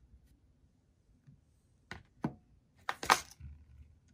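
A few sharp clicks and taps of small metal fishing tackle (a swivel and wire) being handled and set down on the work surface, in two pairs about two and three seconds in, the second pair the louder.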